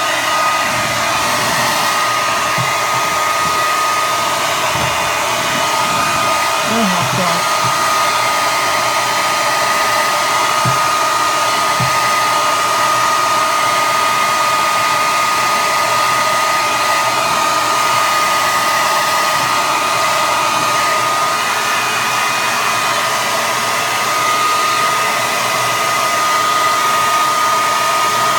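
Hand-held hair dryer blowing steadily, a constant rush of air with a steady high whine over it.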